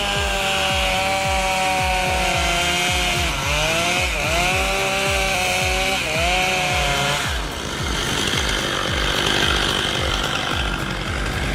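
Chainsaw running under load, its pitch dipping twice as it bogs in the cut, then stopping about seven and a half seconds in. Background music with a steady beat plays throughout.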